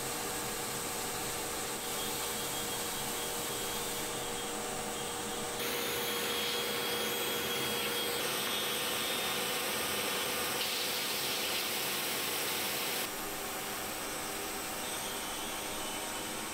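Edge belt sander running, its abrasive belt sanding the edge of a plywood tabletop: a steady rushing noise with a faint hum. The sound changes abruptly a few times.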